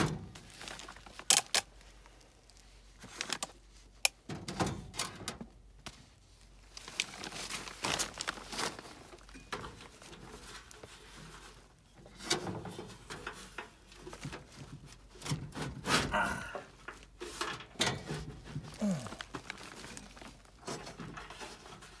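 Hands working inside a sheet-metal gas furnace cabinet: scattered sharp clicks and knocks with stretches of scraping and rustling as wiring is pushed aside and the blower assembly is worked loose.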